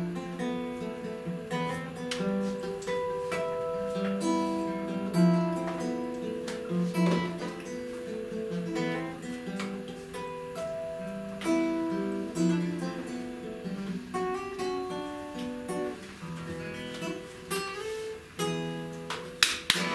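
Classical nylon-string guitar played solo: a fingerpicked melody of single notes and chords at an even pace. Applause breaks in right at the end.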